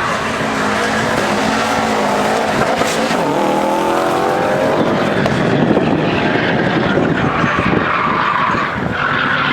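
Performance car engine revving hard, its pitch rising and falling repeatedly, over the noise of tyres skidding on tarmac; a high tyre squeal grows stronger near the end.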